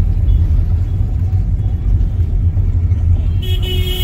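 Steady low rumble of road and engine noise heard inside a moving car's cabin. A short, steady high-pitched tone sounds near the end.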